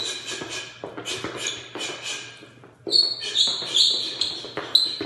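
Feet stepping and shuffling on a hardwood floor during shadowboxing footwork: a run of quick, irregular taps and brief high squeaks. The squeaks are busier after a short lull about three seconds in.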